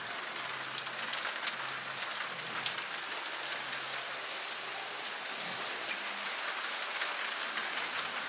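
Heavy rain pouring down: a steady hiss with many separate drops ticking close by.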